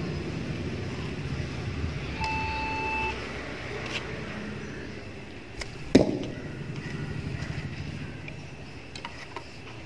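A single shot from a simple wooden bow: the bowstring is released with a sharp snap and a brief ringing twang about six seconds in, the loudest sound here. A brief steady tone sounds about two seconds in, over a low background rumble.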